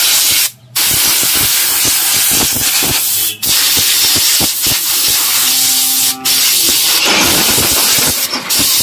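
Compressed-air blow gun blasting air through a motorcycle's pleated paper air filter element to clean it. The air runs loud and continuous, cut by short pauses about every three seconds.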